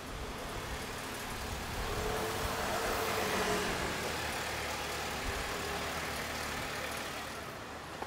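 A car driving past, its engine and tyre noise rising to a peak about three seconds in and fading away.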